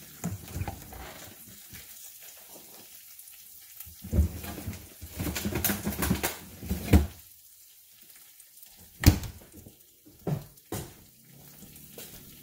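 Dishes and utensils clattering, with a run of knocks and clinks and one sharp knock about nine seconds in that is the loudest sound. Under it is a faint sizzle of spinach in a stainless frying pan.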